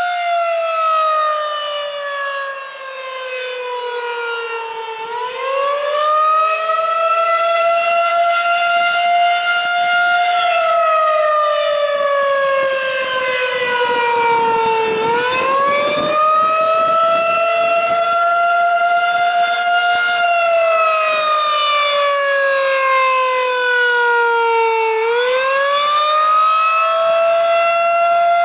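Federal Signal 2001-SRN/DC outdoor warning siren sounding the Attack signal. Its tone falls slowly for about four seconds, then climbs back quickly and holds briefly, repeating about every ten seconds.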